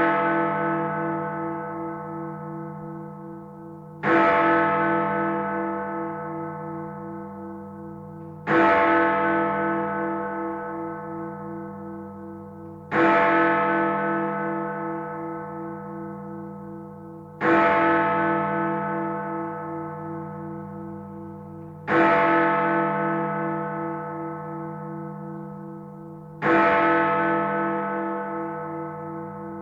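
Big Ben, the Great Bell in the Elizabeth Tower, striking the hour: six slow strokes about four and a half seconds apart, each ringing on and fading into the next, with a throbbing hum.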